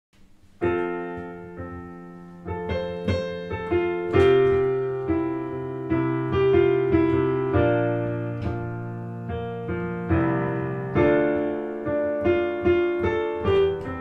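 Piano playing a slow solo introduction to a worship song: sustained chords struck about once a second, each ringing and decaying, the first one about half a second in.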